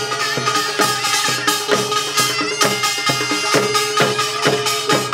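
Korean pungmul folk band playing: barrel drums and other percussion struck in a quick, even rhythm over a held wind-instrument note.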